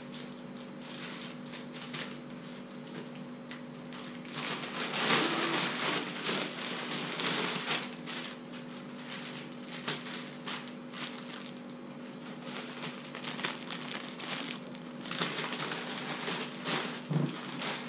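Plastic packaging crinkling and rustling in irregular bursts as bagged items and a plastic mailer are handled, busiest in two stretches a few seconds apart.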